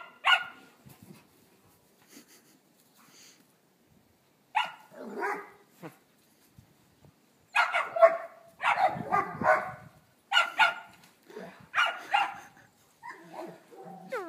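Dog barking during play, in short sharp barks. There is one bark near the start and two about five seconds in, then a quick run of barks over several seconds near the end.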